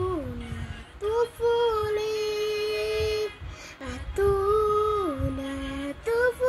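A young girl singing alone, holding long notes that step down in pitch between short breaths.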